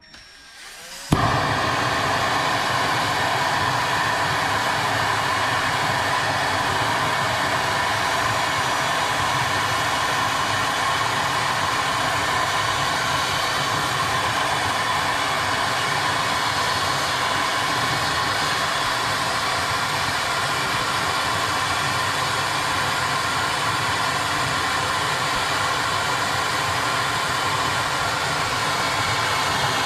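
Gas torch lit and burning with a steady loud hiss, heating a titanium shift knob until it colours. The flame starts abruptly about a second in and holds even.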